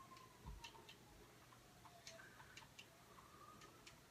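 Near silence: faint room tone with scattered faint ticks and clicks at irregular times, and a faint tone slowly falling in pitch.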